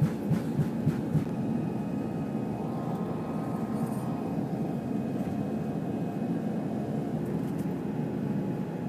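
Airliner engines and airflow heard inside the cabin: a steady low rumble with faint higher tones. There are a few short knocks in roughly the first second.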